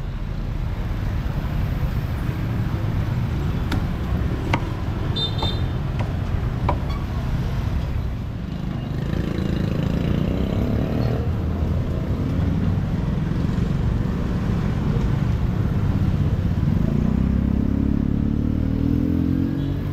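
Road traffic: motor vehicle engines running close by, one of them rising in pitch near the end as it speeds up. A few sharp knocks or clatters sound in the first several seconds.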